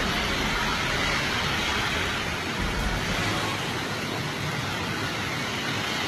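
Steady hiss of a heavy downpour on a city street, with cars and a bus driving through the surface water.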